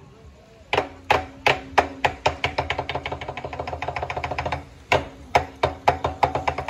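Lion dance percussion played lightly: short, sharp, dry strikes, a few spaced single hits that speed up into a fast even roll of about six a second, then slow back to single hits about twice a second.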